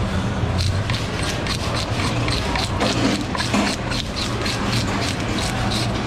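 A toothed metal fish scaler scraping the scales off a whole red sea bream, in quick repeated strokes about three a second. A steady low hum runs underneath.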